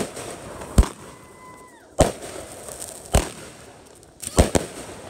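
Consumer aerial fireworks bursting overhead: a string of sharp bangs about one a second, with a quick double bang near the end.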